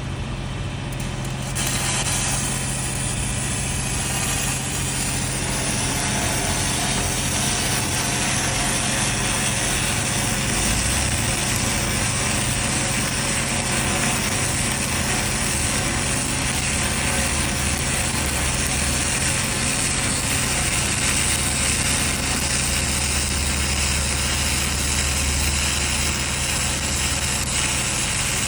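Stick-welding arc with an E6010 electrode crackling and hissing steadily on the root pass of a 3-inch pipe joint, striking up about a second and a half in. A steady engine hum runs underneath.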